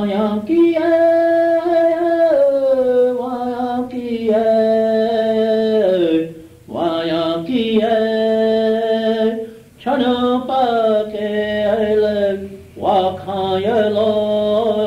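A voice chanting a Lakota-style song on a home cassette recording. It starts abruptly with held notes, and each phrase of a few seconds falls in pitch at its end before a short breath pause.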